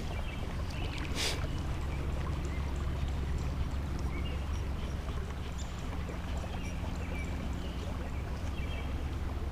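Steady low rumble of flowing river water, with a sharp click right at the start and a brief hiss about a second in.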